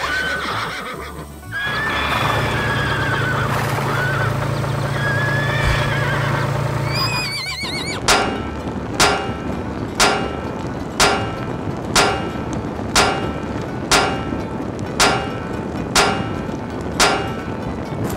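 A horse whinnying, with gliding high calls over the first half and a low steady hum beneath. About eight seconds in, a hammer starts striking a horseshoe on an anvil about once a second, ten ringing metallic clangs.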